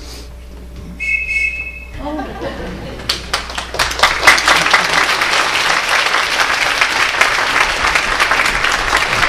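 A whistle blown once, a steady shrill note lasting about a second, followed by applause that breaks out and keeps going, a dense patter of hand claps.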